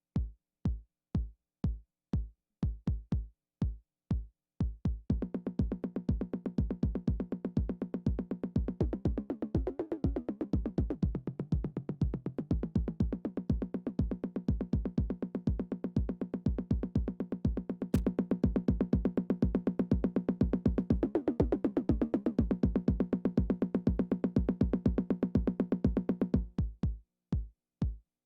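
Roland drum machines playing a programmed beat. For about five seconds only the bass drum thumps, then fast hi-hat ticks and a steady low pitched drone come in, with two sweeping tones along the way. Near the end the drone and hats cut off, leaving the bass drum alone again.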